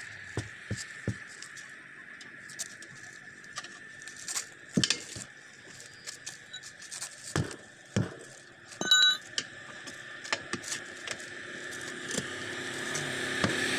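Steel tyre levers knocking and scraping against a tractor's steel wheel rim as the tyre bead is prised over it: scattered clinks and knocks, with one clear metallic ring about nine seconds in.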